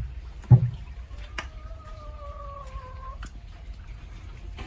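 A heavy dull thud about half a second in, then a long, even animal cry lasting about two seconds that sinks slightly in pitch at the end.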